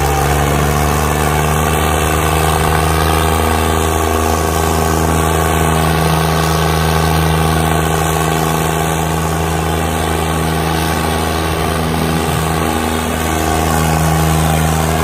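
Diesel engines of a Ford 3600 and a Sonalika 60 tractor running hard at steady high revs as they pull against each other in a tug-of-war, chained back to back. The engine note holds at one steady pitch.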